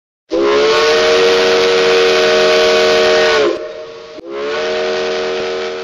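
Steam locomotive whistle sounding a chord of several tones over a rush of steam: one long blast of about three seconds that sags in pitch as it cuts off, then, after a short gap, a second blast that rises into pitch and slowly fades.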